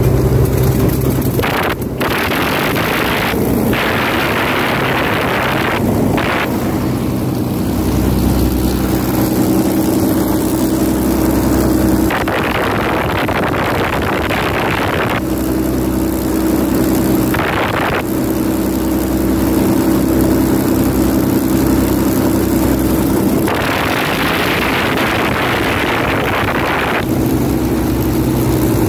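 Avro Lancaster's Merlin V12 piston engines running, a steady drone whose tone shifts every few seconds. Rushes of wind noise from the propeller wash hit the microphone at intervals.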